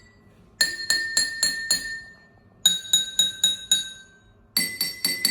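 A metal spoon tapping tall drinking glasses filled with water to different levels. Three runs of about five quick taps, each run on a different glass and ringing at its own pitch: the less water in a glass, the higher it rings.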